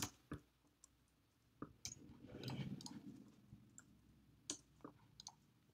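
Sparse, faint clicks of a computer keyboard and mouse: a few keystrokes and scattered clicks at uneven spacing, with a faint low murmur about midway.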